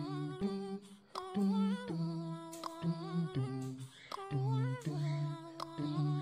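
Background music: a soft, vocals-only nasheed of hummed voices with no instruments, moving through held notes in a slow melody.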